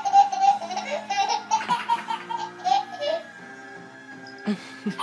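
A baby laughing and squealing in short bursts, mostly in the first three seconds and again near the end, over background music with held notes.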